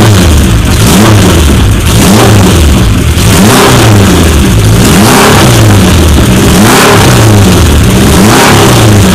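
Honda CB750 K1's air-cooled inline-four engine being revved up and down over and over, about once a second, loud.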